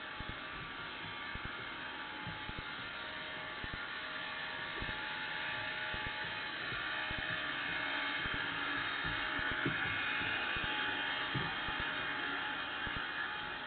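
Underwater ambience picked up by a camera in its waterproof housing: a steady hiss that swells in the second half, with scattered soft clicks and knocks.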